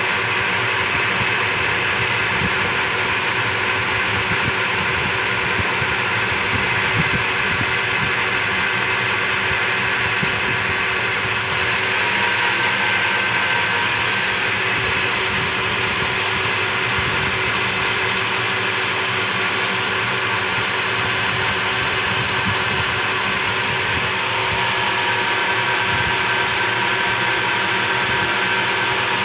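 Old metal lathe running steadily, its motor and gear train making an even mechanical drone with a few steady whines, as a steel shaft spins between centres.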